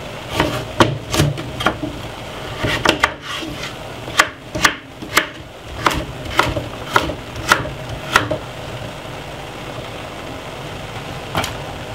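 Kitchen knife chopping a carrot on a wooden chopping board: a series of sharp knocks, about two a second, that stop about eight seconds in, with one more knock near the end.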